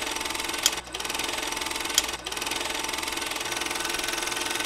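A steady, fast mechanical clatter with a couple of sharp clicks in the first two seconds.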